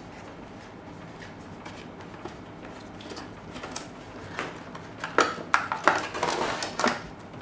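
Paperboard microphone box being opened by hand: quiet handling for the first few seconds, then a run of sharp cardboard crackles, scrapes and clicks over the last few seconds as the end flap is worked open.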